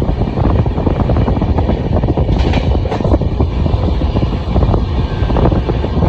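Indian Railways train running at speed, heard from on board: a loud, steady rumble with a dense clatter of wheels on rail and a brief higher-pitched rasp about two and a half seconds in.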